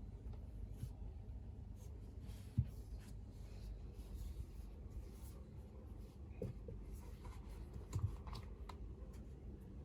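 Keyboard and its packaging being handled: light rustling with a few scattered short knocks and clicks, the sharpest about two and a half seconds in and again near the end.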